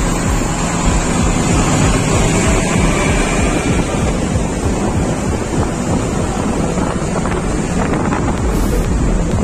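Wind rushing over the microphone of a moving car, with road and traffic noise and a steady low rumble underneath.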